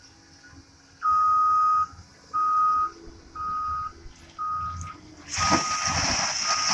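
Excavator's backup alarm beeping, four steady single-pitch beeps about a second apart, the later ones quieter. Near the end a loud rushing hiss with a low rumble sets in over the beeping.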